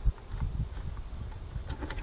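A short low thump right at the start, then low handling rumble and a few faint clicks as hands twist a pontoon boat's ignition switch and its plastic cover out from behind the helm dash.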